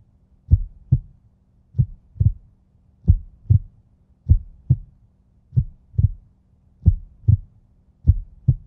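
Heartbeat sound effect: slow pairs of low lub-dub thumps, one pair about every 1.3 seconds, over a faint steady low drone.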